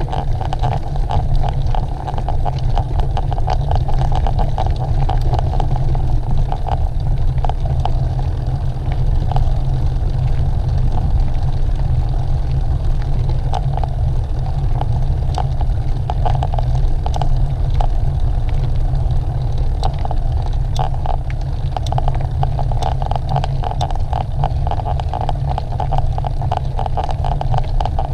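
Wind buffeting a moving camera's microphone as it rides a cross-country course, with steady rumble and tyre noise and a stream of small clicks and rattles from the bumpy trail.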